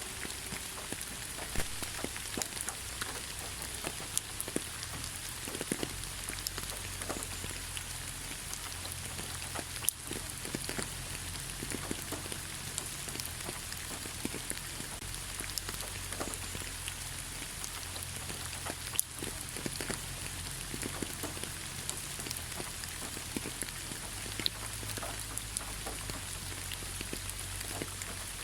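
Steady gentle rain falling on leaves, an even hiss with many scattered drops pattering, a few louder single drips standing out, over a low steady rumble.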